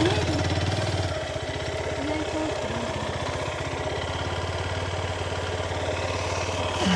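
Motorcycle engine running steadily at low revs, with an even, rapid firing pulse.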